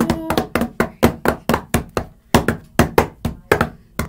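Hands slapping a hard surface in a homemade drum roll: quick, somewhat uneven knocks, about three or four a second.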